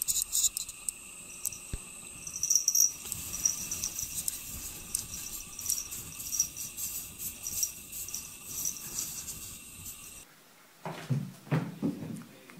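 Insects chirping in a high, pulsing trill. About ten seconds in it gives way to a few short, lower sounds.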